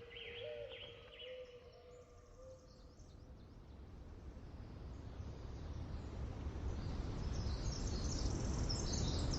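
Dawn-chorus birdsong, with short chirps and a steady held whistle, fades out over the first couple of seconds. A low, steady rumble then swells, and high, quick bird chirps come in and grow louder toward the end.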